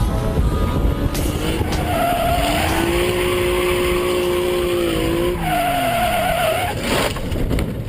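Vehicle engine revving up, holding high revs for about three seconds, then dropping off, with tires skidding and squealing.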